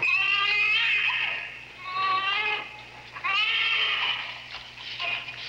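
A baby crying: three long wailing cries with short breaths between, and another beginning near the end.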